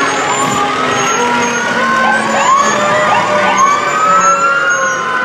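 Several emergency-vehicle sirens sounding at once: overlapping rising and falling wails, with a run of quicker yelping sweeps in the middle, over the hum of the trucks.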